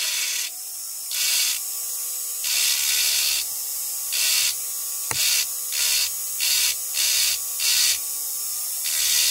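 Diamond burr in a rotary carving handpiece grinding wet fire agate in short repeated touches: a hissing grind that comes and goes about once or twice a second over a steady background hiss, with one sharp click about five seconds in.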